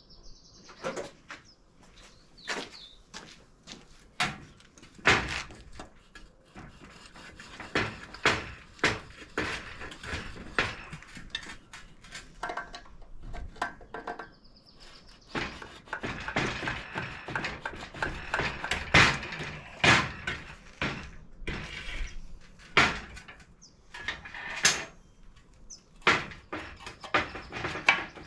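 Metal hand tools clinking, knocking and scraping against a transmission case as an old bushing is worked out of its bore: irregular sharp clicks and knocks, with a longer stretch of scraping about halfway through and a few brief high squeaks.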